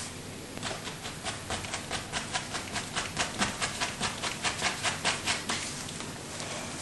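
Paintbrush scrubbing on a stretched canvas: a quick, even run of short strokes, about five a second, that starts about half a second in and stops near the end.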